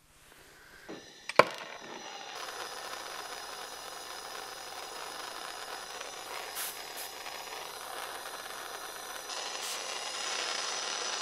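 A sharp click about a second and a half in, then a jeweller's gas torch flame hissing steadily, a little louder near the end.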